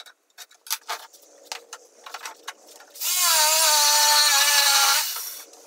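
Light knocks and clicks of wood being handled, then an electric jigsaw runs for about two seconds with a loud motor whine whose pitch sags slightly before it stops.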